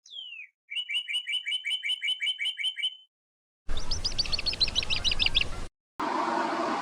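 Common starling calls: a single whistle falling steeply in pitch, then a quick run of repeated chirps, about five a second for some two and a half seconds. After a short pause comes a faster rattling trill over a steady background hiss.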